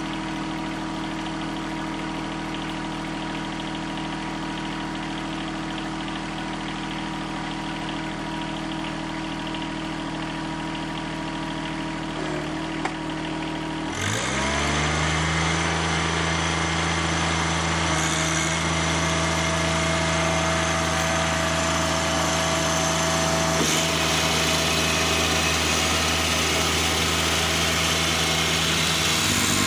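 John Deere 1023E compact tractor's three-cylinder diesel engine running steadily, then revving up sharply about halfway through and holding at a higher, louder speed while the front-mounted snowblower throws snow.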